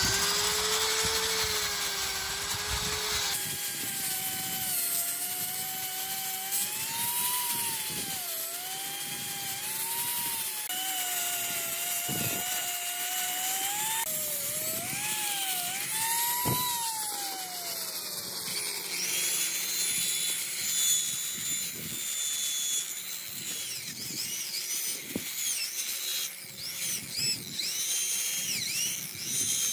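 Angle grinder spinning a red cup brush against a rusty cast-iron machine base, its motor whine wavering up and down in pitch. Near the end a drill spins a small rotary brush inside a bore of the casting.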